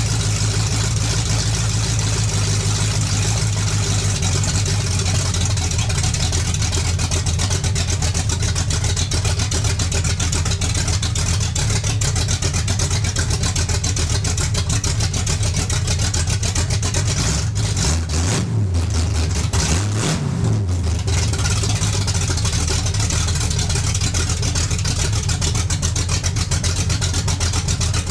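1965 Chevrolet C10's 454 big-block V8 running with a steady beat of exhaust pulses, its carburetor freshly dialed in and its vacuum leaks fixed so it runs crisp. About two-thirds of the way through the engine note briefly swings down and back up.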